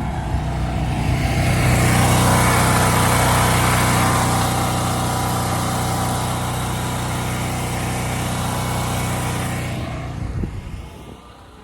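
Generator running steadily with a low hum under a loud rushing noise. The sound swells about a second in and drops away near the end.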